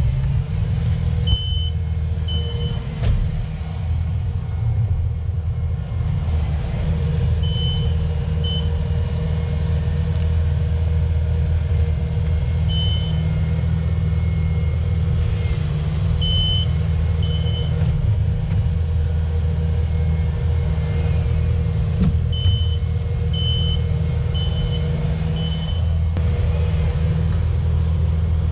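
Diesel engine of compact earthmoving equipment running steadily under load. Short runs of high back-up alarm beeps come several times as the machine reverses.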